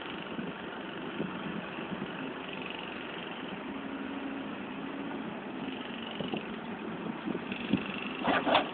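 Caterpillar 442E backhoe loader's diesel engine running steadily as it works its front loader bucket through brick rubble. Near the end come a few sharp knocks, the loudest pair about a second before the end, as the bucket strikes the rubble.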